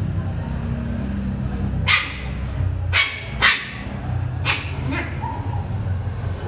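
Small dogs at play giving about five short, sharp yips and barks in the middle of the stretch, over a steady low hum.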